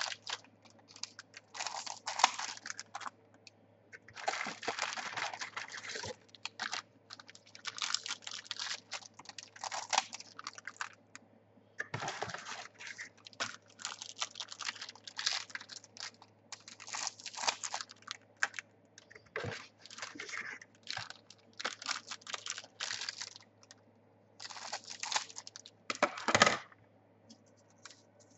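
NRL trading card packets being torn open and the cards handled and flicked through by hand, in irregular crinkly rustles and clicks.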